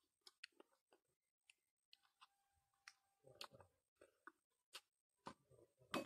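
Quiet, sparse eating-by-hand sounds: small clicks of fingers mixing rice on a steel plate, then chewing and lip smacks from about three seconds in, growing louder near the end.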